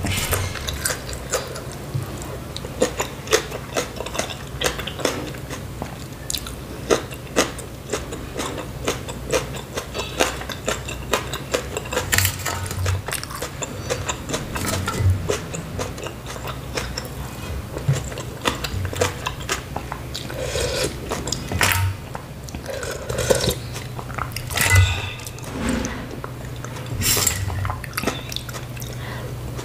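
Close-miked chewing and mouth sounds of a person eating spicy noodle soup, with many small irregular clicks and a few longer wet patches.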